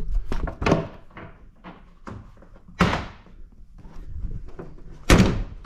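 Ford Bronco hood being lowered and slammed shut: a few lighter knocks, then one loud slam about five seconds in.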